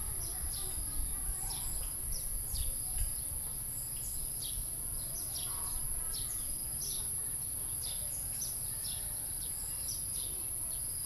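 Countryside ambience of insects and birds: a steady high-pitched insect drone with many short bird chirps repeating over it. Low wind rumble on the microphone sits underneath, gustier in the first few seconds.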